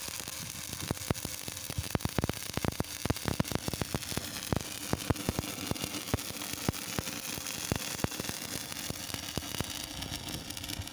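Electric arc welding: a steady hissing sizzle with irregular sharp crackles and pops from the arc.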